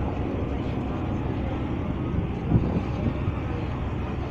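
Passenger ferry's engines running with a steady low drone and rushing noise, with one brief thump about halfway through.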